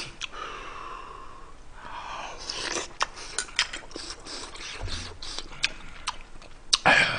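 Close-miked eating sounds of a man chewing spicy stew and rice: wet mouth clicks, with noisy breaths through the nose between bites. A louder breathy burst comes near the end.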